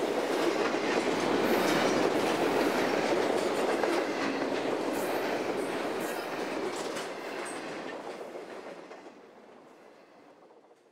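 Freight train of double-stacked container cars and autorack cars rolling past, a steady rush of wheels on rail with occasional clacks. It fades away over the last few seconds.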